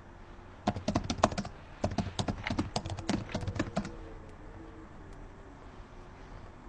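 Typing on a computer keyboard: a quick, irregular run of key clicks lasting about three seconds, stopping a little past the middle and leaving only faint room hum.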